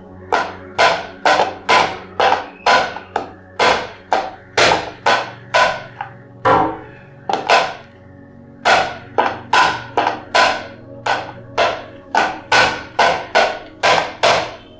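Hands slapping in a quick steady rhythm, about two sharp smacks a second, each with a short ring; the rhythm stops briefly twice around the middle, then picks up again.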